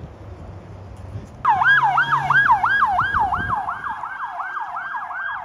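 Ambulance siren in a rapid yelp, its pitch sweeping up and down about four times a second; it starts abruptly about a second and a half in over low wind noise.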